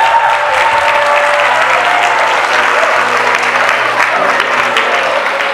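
Audience applauding, with background music playing under the clapping.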